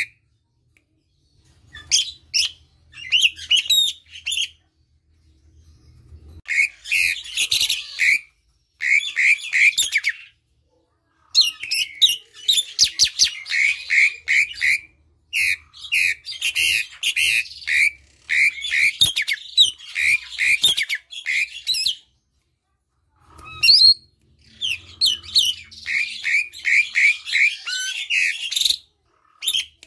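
Asian pied starling (jalak suren) singing loudly in bursts of harsh chattering phrases, with fast runs of repeated chirps, broken by a few short pauses.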